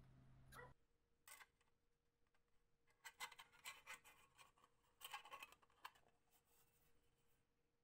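Faint clicks and rubbing from hands handling a thin sheet-metal flashlight case, in short clusters about three and five seconds in. A low steady hum cuts off abruptly just under a second in.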